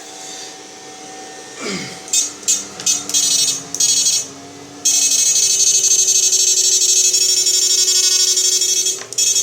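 Electric fish-shocking machine (IGBT inverter) buzzing as it discharges into salt water. It gives a few short buzzing bursts about two seconds in, then a loud, steady, high-pitched buzz from about five seconds in that dips briefly near the end.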